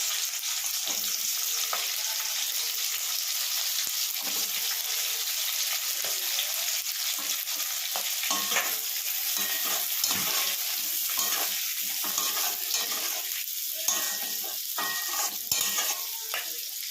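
Chopped onion sizzling in hot oil in a kadai while a spatula stirs and scrapes it. The scraping strokes come more often in the second half.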